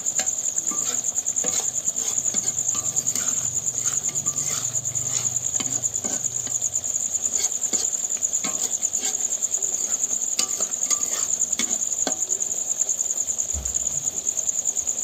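Crickets chirping in a steady, fast-pulsing high trill, with scattered pops and crackles from a curry sizzling in a kadai as its last liquid cooks off.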